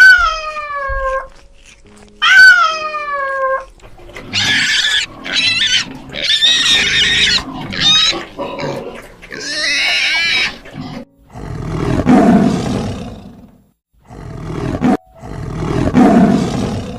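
A run of animal calls: two long cries falling in pitch, then a string of shrill squealing calls, then three deep, rough growls.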